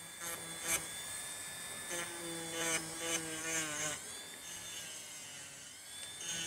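Electric nail file (e-file) running in reverse with a small bit working the cuticle area: a steady motor whine that wavers in pitch between about two and four seconds in, as the bit presses against the nail.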